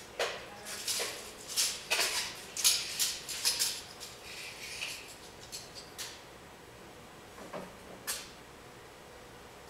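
Scratchy strokes of drawing on paper: quick and frequent for the first few seconds, then thinning to a few single strokes.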